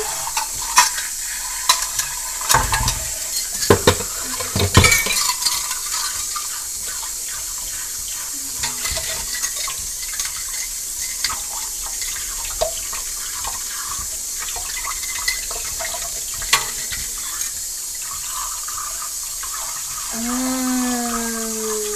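Kitchen faucet running into a stainless steel sink as a pot and utensils are washed by hand, with sharp clinks and knocks of metal in the first few seconds and a few more later. Near the end a short pitched note sounds over the water.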